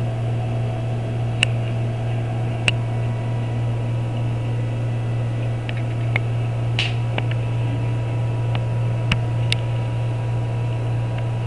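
A steady low electrical hum with a light hiss, broken by about half a dozen faint, sharp clicks.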